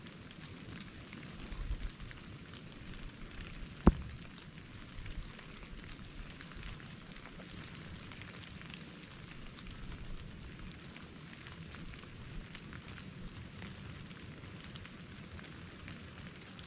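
Light precipitation pattering steadily, a fine scatter of small ticks, with one sharp click about four seconds in.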